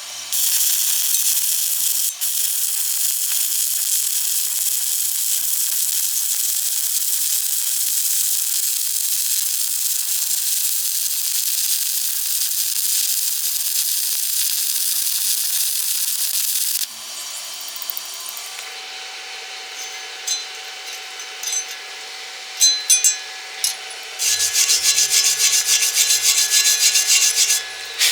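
Stick-welding arc hissing and crackling steadily for about sixteen seconds, then cutting off abruptly as the arc is broken. Scattered sharp clicks follow, then a few seconds of fast, rhythmic scraping on metal.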